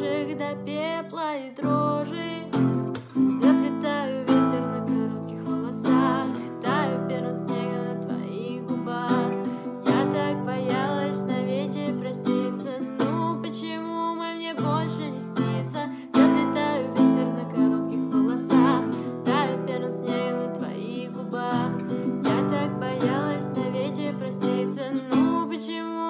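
A woman singing a Russian-language song while strumming an acoustic guitar.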